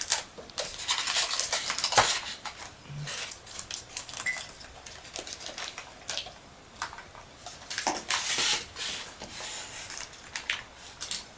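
Rustling and clicking of box packaging as a diecast model fire truck is lifted out, with irregular small knocks and clinks; the sharpest knock comes about two seconds in.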